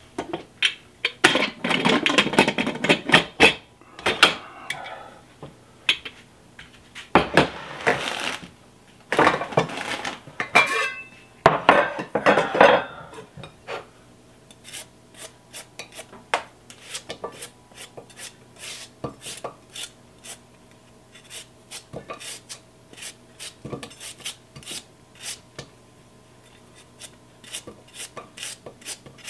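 Metal pot and lid clattering and scraping, then a knife chipping pieces off a peeled Korean radish into a pot, a sharp click about twice a second.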